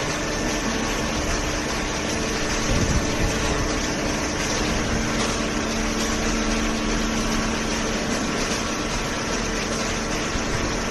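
Automatic hydraulic waste paper baler running: a steady hum of its hydraulic pump and motor over even machine noise. A lower tone joins from about five seconds in to about eight seconds in.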